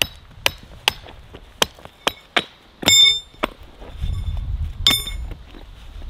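Hammer striking steel concrete-form stakes to loosen them: about a dozen irregular knocks, two of them ringing out metallically about three and five seconds in. A low rumble sounds between the last strikes.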